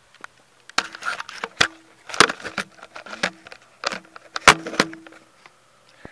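Dancing feet thumping and knocking on the floor right beside the phone: an irregular run of thumps, the loudest about four and a half seconds in.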